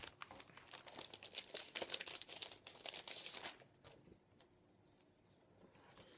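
Paper and packaging rustling and crinkling as a stack of art prints is pulled out and handled, a quick run of small crackles that stops a little past halfway.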